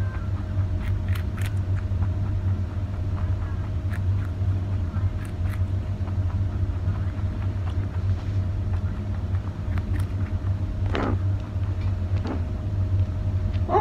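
A white rabbit chewing a carrot, faint crunching clicks scattered through, over a steady low hum.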